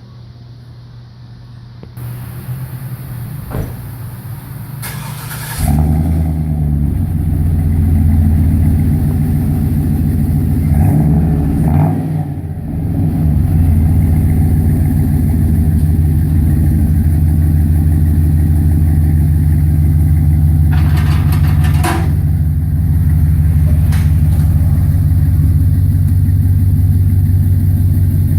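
Chevrolet Silverado HD's 6.0-litre V8 running through true dual exhaust with two-chamber Flowmaster Super 44 mufflers. It catches and starts about six seconds in, then settles into a loud, steady, throbbing idle.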